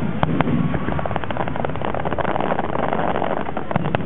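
Fireworks going off: a rapid run of crackling pops over a low rumble, densest about two to three seconds in.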